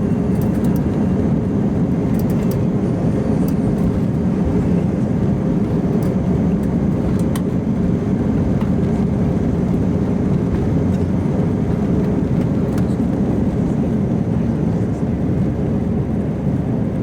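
Airbus A319 cabin during takeoff: the jet engines run steadily at takeoff thrust, a deep even roar of engine and air noise heard through the fuselage, with a few faint light rattles.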